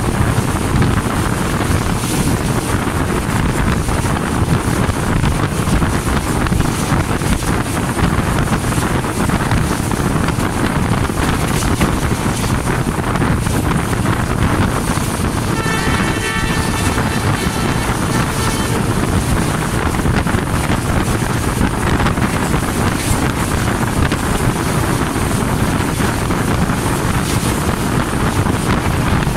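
ZCU-20 diesel-electric locomotive running under way, heard from beside its long hood: engine, wheels on the rails and heavy wind on the microphone in one steady noise. About halfway through, a steady tone of several pitches sounds for about three seconds.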